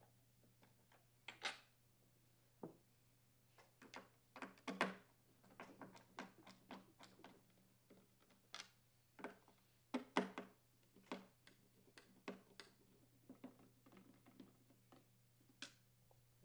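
Faint, scattered clicks and light taps of a hand screwdriver turning screws out of a plastic leaf blower housing, with the parts being handled, over a faint steady low hum.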